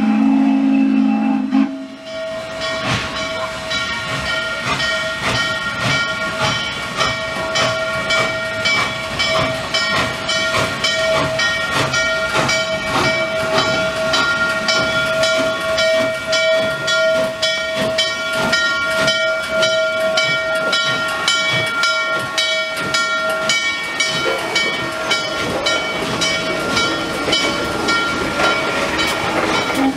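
A deep steam whistle chord cut off abruptly about two seconds in. Then Norfolk and Western 611, a 4-8-4 J-class steam locomotive, rolls slowly past close by with steam hissing from its cylinder cocks and a steady, evenly beating ringing over it, typical of the locomotive's bell.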